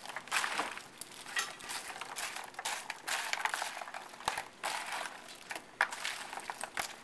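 A spatula tossing dressed croutons and tomato chunks in a large glass dish: irregular scraping, rustling and light clatter against the glass as the crusty bread tumbles.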